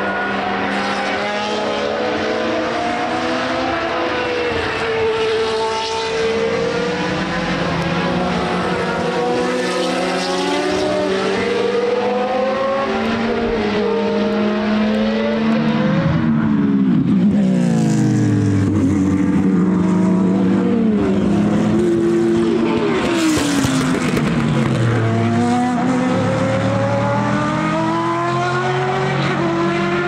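Racing car engines running hard on a circuit, several at once, their notes climbing in steps as they rev up through the gears. About halfway through, and again a few seconds later, a car passes close and its engine note drops steeply.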